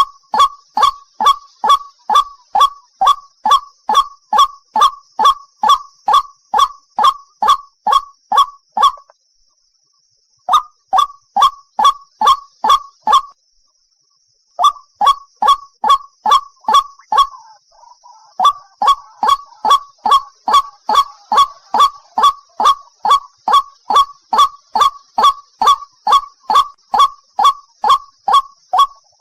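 A single white-breasted waterhen calling: a fast, loud run of short, repeated honking notes, about two and a half a second. The run breaks off twice for a second or so, about a third of the way through and again near the middle.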